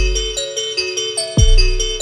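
Background music: quick, evenly repeated high notes over a deep bass that fades out early, with a fresh deep bass hit about one and a half seconds in.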